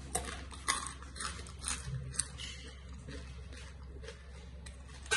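Faint crunching and clicking of crispy fried macaroni, a handful of sharp crackles in the first two and a half seconds and sparser ones after, over a low steady hum.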